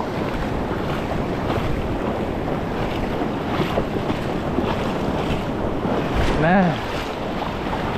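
Shallow surf washing and foaming over a rocky reef flat close around the microphone, with wind buffeting the mic. A short vocal exclamation about six and a half seconds in.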